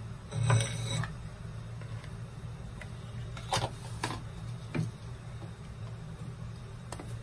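Light clicks and taps of kitchen utensils and containers being handled, over a steady low hum. A louder bump comes about half a second in, and a few single sharp clicks follow later.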